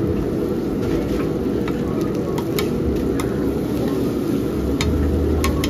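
Street-food stall cooking noise: a steady low roar with sharp clicks and taps of utensils several times, and a low hum coming in about three seconds in.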